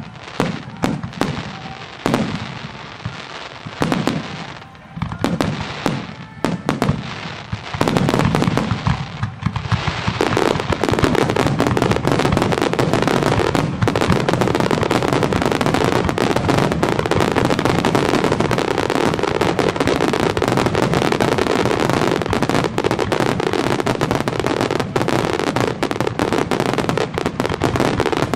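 Fireworks display: separate shell bursts go off in quick succession for the first several seconds. About eight to ten seconds in they merge into a dense, continuous barrage of bursts that runs on without a break.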